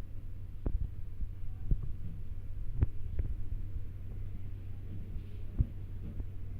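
Hands thumping and patting on a head during a massage: a handful of irregular soft thumps and clicks over a steady low hum, the loudest about three seconds in.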